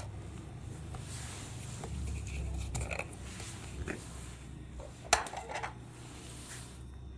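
A small electric motor in a toy running with a steady low hum, with light plastic clattering and a sharp knock about five seconds in.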